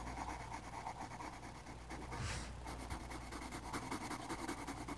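Colored pencil scratching across drawing-pad paper in quick, light back-and-forth shading strokes.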